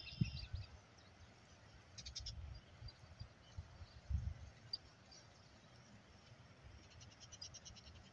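Faint outdoor ambience: short, rapid high-pitched trills about two seconds in and again near the end, over irregular low rumbles from wind on the microphone.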